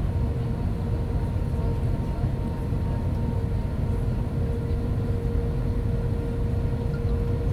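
Steady cabin noise inside an Airbus A320 with IAE V2527E-A5 engines: a constant low rumble with a steady engine hum.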